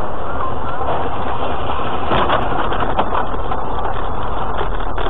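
Steady engine and tyre noise inside a car driving on a snow-covered highway, with a few short knocks about two to three seconds in.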